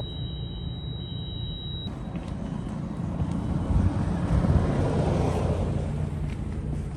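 Street traffic: a motor vehicle passing over a steady rumble, growing to its loudest about four to five seconds in and then fading.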